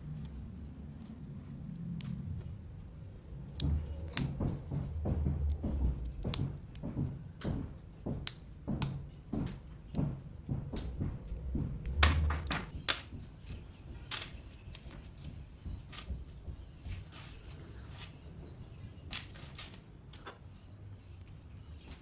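Small laser-cut wooden kit pieces clicking and tapping as they are pressed together by hand and set on a table: a dense run of sharp clicks from about four to thirteen seconds in, loudest near the end of that run, then a few scattered taps.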